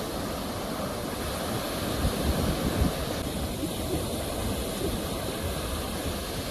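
Sea waves on the shore: a steady rush of surf that swells briefly about two seconds in.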